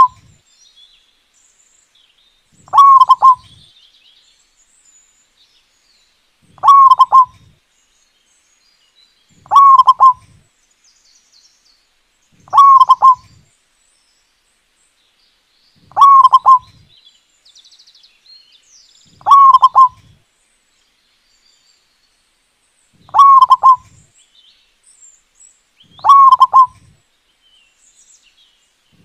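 Zebra dove (perkutut) singing its song: a short phrase of quick cooing notes, repeated every three seconds or so, eight times. Faint chirps of other birds sound between the phrases.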